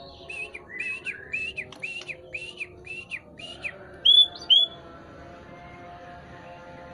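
A murai (white-rumped shama) singing: a rapid run of about eight repeated arched whistled notes, roughly three a second, followed by two louder, higher clear whistles about four seconds in.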